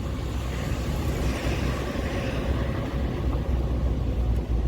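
Lorry driving at speed: a steady low engine rumble with road noise.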